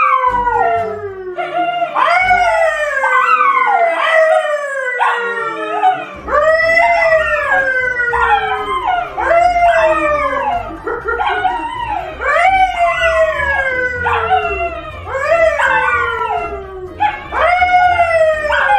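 A yellow Labrador retriever and a brown poodle howling together with a person howling along, a string of loud, overlapping howls, each sliding down in pitch, one after another every second or so.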